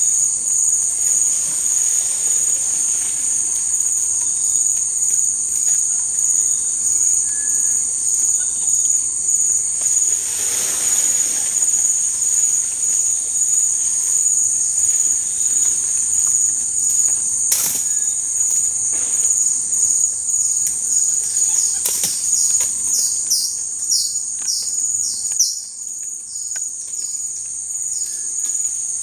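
Forest insects droning steadily on one high pitch. About ten seconds in there is a brief rustle, later two sharp clicks, and near the end a quick run of short falling chirps.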